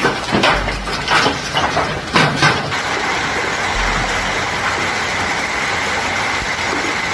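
Hailstorm: a patter of separate hailstone knocks, then, from about three seconds in, a steady dense hiss of hail pelting down on water and paving.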